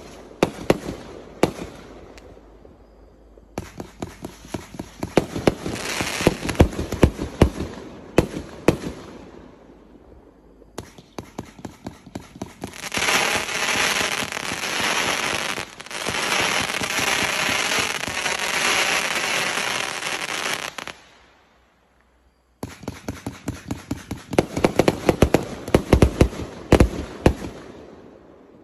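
268-shot consumer firework cake firing in rapid succession: quick launch thumps and bursting breaks, one shot after another. About halfway through, a long stretch of dense crackling from gold crackling stars, then a brief gap before rapid shots start again.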